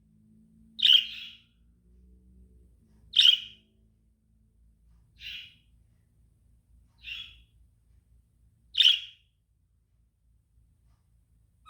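Lovebird calling: five short chirps about two seconds apart, the first, second and last louder than the other two.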